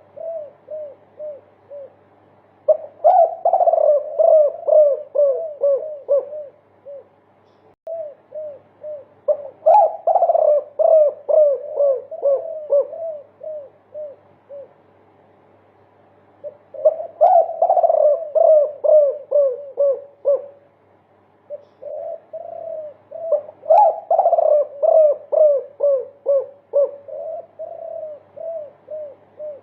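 Derkuku (spotted dove) giving a 'multi-kuk' cooing song: long runs of many quick coo notes, four runs of several seconds each, with sparser coos between them.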